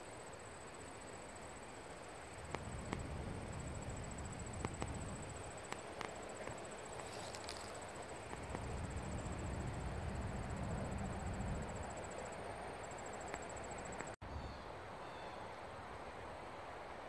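Field insects trilling in a steady, high, finely pulsing chirr, over a low rumbling noise that swells a few seconds in, with a few faint clicks. The sound cuts out for an instant about fourteen seconds in.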